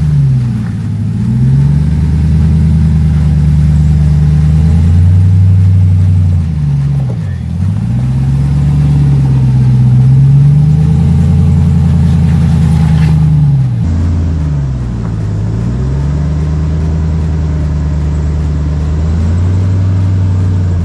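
Ram 1500 TRX's supercharged 6.2-litre V8 working under throttle while rock crawling. Its pitch dips and climbs back three times as the throttle is eased off and reapplied.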